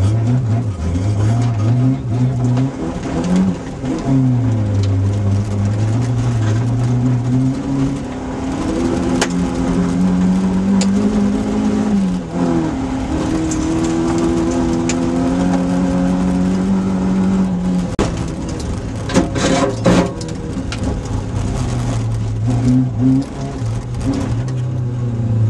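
Rally car engine heard from inside the cockpit, running hard along a stage with its revs repeatedly climbing and dropping, and one long high-revving stretch in the middle. A few sharp knocks come about twenty seconds in.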